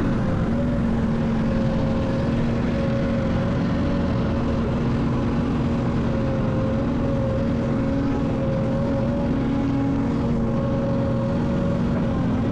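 Heavy-equipment diesel engine running steadily: an even drone with a couple of steady tones and no changes in pitch.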